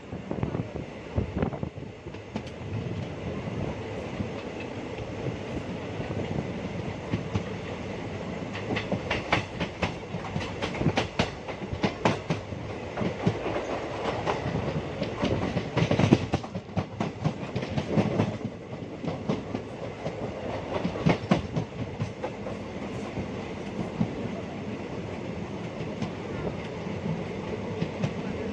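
ICF passenger coach wheels running on the track, heard from on board the moving train: a steady rumble with repeated clusters of clickety-clack as the wheels cross rail joints, loudest about halfway through.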